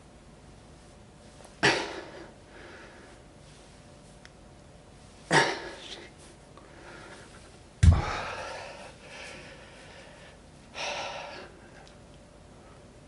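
A man's forceful exhalations as he lifts a 20 kg kettlebell: four hard, sudden breaths a few seconds apart. The third, about eight seconds in and the loudest, comes with a heavy thud.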